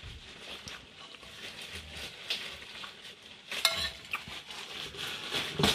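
Metal spoon scraping and clinking against a plate of rice while eating. Scattered light clicks are heard, with one sharper clink about three and a half seconds in that rings briefly.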